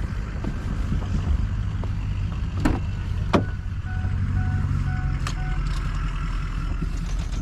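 A truck engine idles with a steady low drone. Two sharp clicks come about a third of the way in, followed by four short electronic warning-chime beeps around the middle.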